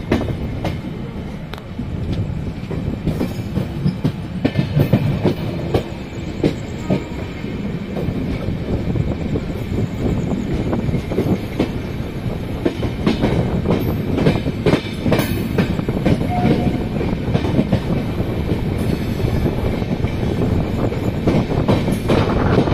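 Train running on the rails through a yard: a steady rumble, with the wheels clattering over rail joints and points at uneven intervals.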